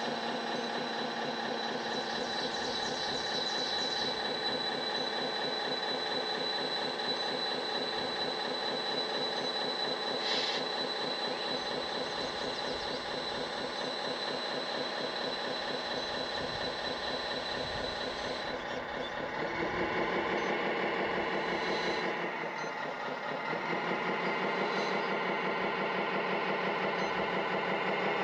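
Kabolite 970 RC hydraulic excavator running, its hydraulic pump and motor giving a steady mechanical whine with a fast buzzing texture. The sound shifts and grows louder about two-thirds of the way through, dips briefly, then rises again as the machine works.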